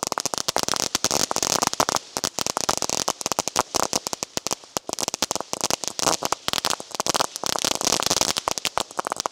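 Lotus Flower consumer fireworks fountain burning, with dense, rapid crackling pops over a steady hiss of sparks.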